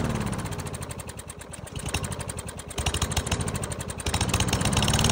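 Lawn-Boy push mower's Briggs & Stratton single-cylinder engine running as mouthwash is squirted into its intake: it slows down over about two seconds, labours at low speed, then picks back up near the end.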